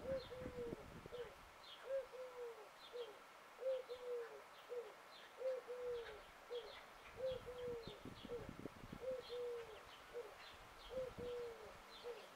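A dove cooing a three-note phrase over and over, about once every two seconds, with small birds chirping faintly and high-pitched in the background.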